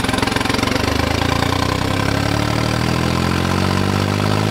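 Tractor's diesel engine pulling away and accelerating, its note rising steadily in pitch from about a second in.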